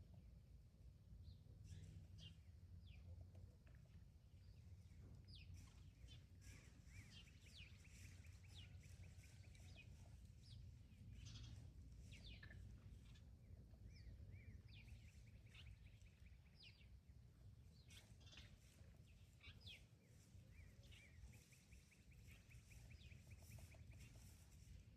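Faint birdsong: many short chirps and a few rapid trills from several small birds, over a steady low rumble of outdoor background noise.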